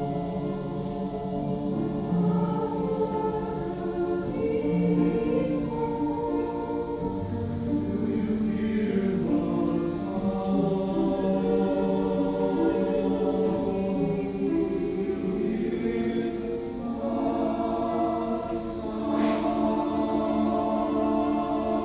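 Church choir singing slow, sustained chords in a cantata, the harmony shifting every few seconds.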